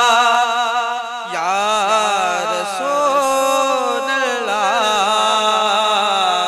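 Male voice singing a Sindhi naat, drawing out a phrase of the refrain 'sallallahu alaihi wa sallam'. It holds one note for about the first second, then winds through sliding, ornamented turns.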